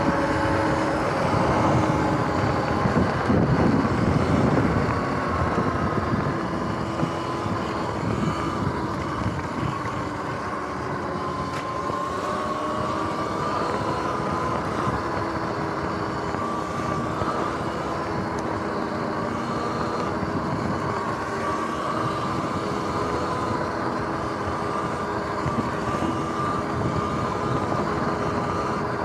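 Sur-Ron electric dirt bike being ridden off-road: the motor's whine drifts up and down with speed over a steady rushing noise, louder and rougher in the first few seconds.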